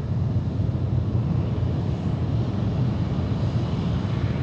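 Space Shuttle Main Engine, a liquid-hydrogen/liquid-oxygen rocket engine, firing steadily in a static test: a loud, unbroken rumble, strongest at the very bottom of the range.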